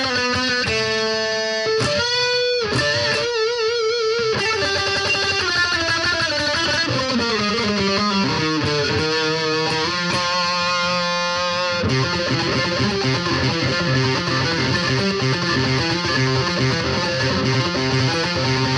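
BC Rich Virgin electric guitar on its neck pickup, played through the distortion channel of a Roland Cube Lite practice amp: sustained single-note lead lines with wide vibrato, a descending run, then a fast, rhythmic riff on the low strings from about twelve seconds in.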